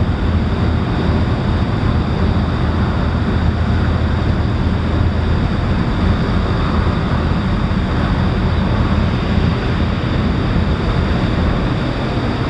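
Steady low rumble with wind noise on the microphone, the level holding even throughout.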